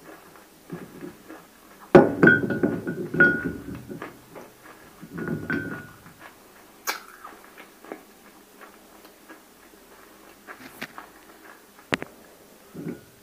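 Close-miked crunching of water-soaked roasted clay (nakumatt) being bitten and chewed: a loud crackly bout about two seconds in, a second shorter one around five seconds, and scattered sharp clicks and small crackles in between.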